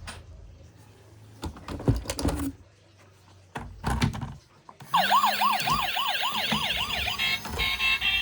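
Knocks and clicks of toys being handled. About five seconds in, a toy emergency vehicle's electronic siren starts with a fast up-and-down wail, changing near the end to a stepped electronic melody.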